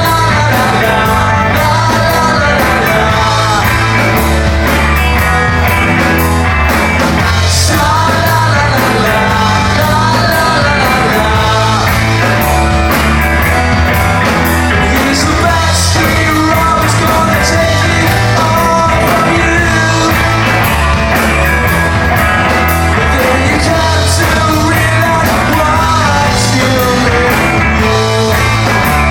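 Live band performing a song: a lead vocal over guitar and drums, loud and continuous.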